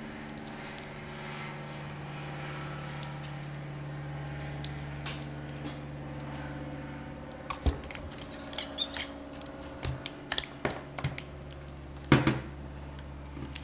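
Metal parts of a paintball marker's bolt being screwed together and handled: scattered light clicks and knocks in the second half, with a sharper click about twelve seconds in, over a steady low hum.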